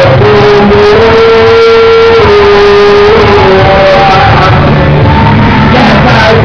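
Amateur karaoke: people singing loudly into microphones over a rock backing track, played very loud. One voice holds a long note through the first half, stepping up in pitch and back down, then goes into shorter sung phrases.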